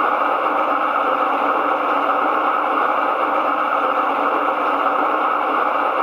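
Sound module of a Piko V36 G-scale model diesel locomotive playing a steady, hissy diesel engine running sound through its small onboard loudspeaker.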